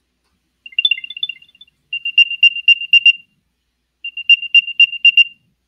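Apple AirTag's built-in speaker playing its Find My locating sound, triggered from the phone to help find the tag: a short chirp of a few high notes, then runs of rapid high-pitched beeps, each about a second and a half long, with short gaps between.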